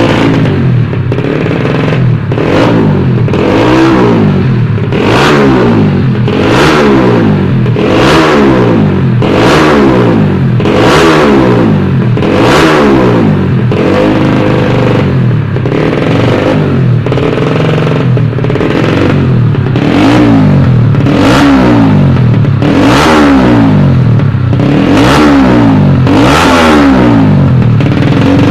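A racing motorcycle engine revved again and again in quick blips, its pitch climbing and dropping back roughly every one and a half to two seconds, during a sound check of the finished engine.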